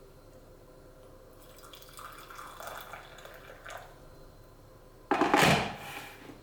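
Faint handling noises, then about five seconds in a short, loud gush of running water that fades away within about a second.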